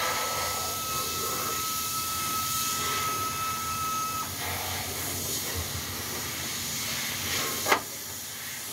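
A steady hiss with a thin high tone through the first half, and one sharp knock near the end.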